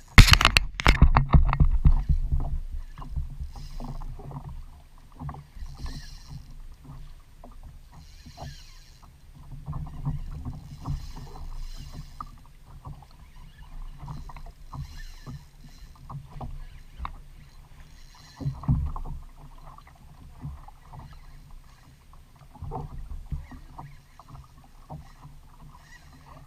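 Water lapping and slapping against the plastic hull of a Hobie Outback fishing kayak, with a low rumble of wind on the camera microphone and scattered small knocks and clicks. A loud knock-like burst comes right at the start.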